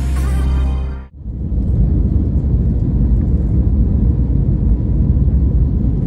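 Background music cuts out about a second in, giving way to the steady low rumble of a jet airliner's cabin: engine and airflow noise heard from a window seat during the landing approach.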